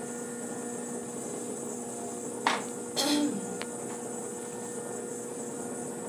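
Steady electrical hum, with a sharp click about two and a half seconds in and a short sound from a person's voice falling in pitch just after it, then a faint tick.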